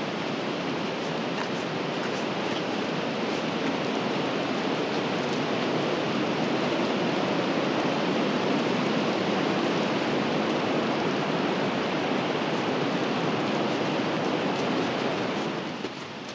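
Rushing water of a forest stream or cascade: a steady, dense hiss that drops suddenly in level near the end.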